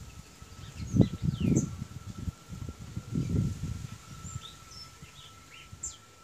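Small birds chirping in the background, with short high chirps and quick falling sweeps scattered through. A few low thumps about a second in, and again at about three seconds, are the loudest sounds. A faint steady high tone runs underneath.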